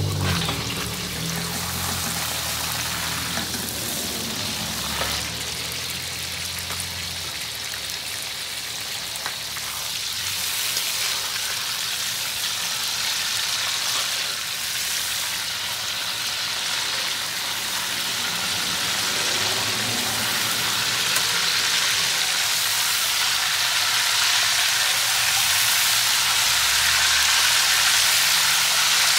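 Hot oil sizzling in a wok as sliced shallots, tomatoes and red chillies fry in it, a steady crackling hiss that grows louder toward the end.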